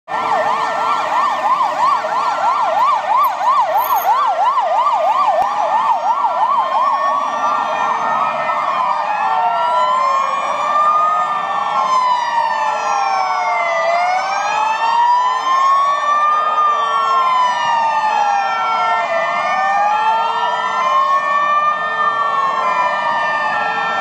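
Hungarian police car siren, starting with a fast yelp that switches about 7 seconds in to a slow rising and falling wail, with a second wail crossing it out of step.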